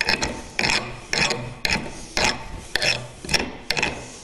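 Rasp filing the rough top of a hardwood hammer handle wedged into a ball peen hammer head, to finish it flush. It goes in regular push strokes, about eight of them, roughly two a second.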